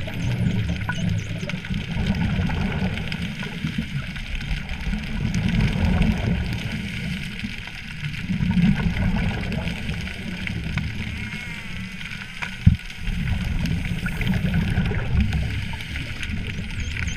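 Underwater rumble and bubbling of a scuba diver's regulator exhaust, swelling and fading every few seconds with the breaths, with one sharp knock about three quarters of the way through.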